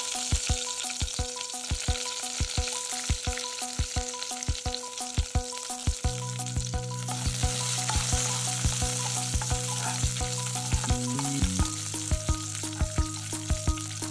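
Oil sizzling in a wok as a tempering of mustard seeds, curry leaves and dried red chillies fries, stirred with a metal spoon. Background music with a steady tick and held notes plays underneath.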